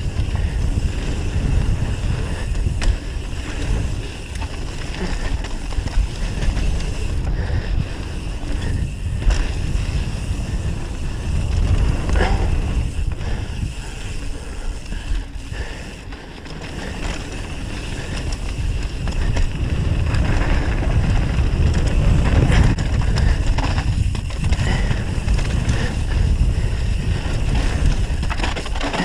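Wind buffeting an action camera's microphone on a fast mountain-bike descent, over the rumble of tyres on a dirt trail, with scattered knocks and rattles as the bike hits bumps.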